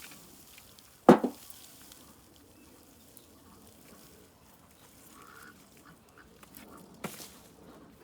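Hand-digging potatoes in raised-bed soil: soft rustling and scraping of dirt and dying vines, broken by a loud sharp knock about a second in, with a smaller one just after, and another knock near the end.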